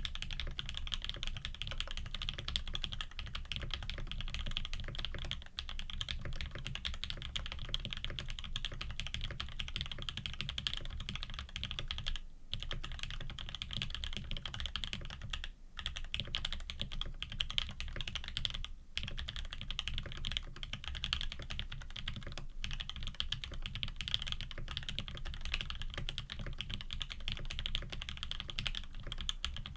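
Fast, continuous typing on a Frog TKL custom mechanical keyboard with lubed Tangerine linear switches, an aluminium plate and GMK keycaps: a dense, even stream of keystrokes, broken by brief pauses about 12, 15 and 19 seconds in.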